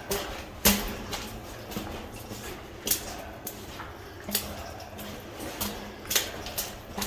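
Irregular footsteps and small knocks of a person making their way through a narrow, wet mine adit: sharp uneven clicks and scuffs, about one or two a second, with a strong knock about half a second in.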